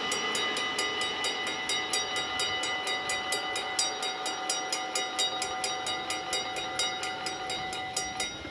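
Dutch level-crossing warning bells ringing in a rapid, even run of strikes while the half-barriers rise after the train has cleared. A steady tone under the bells cuts off shortly before the end, as the barriers come fully upright.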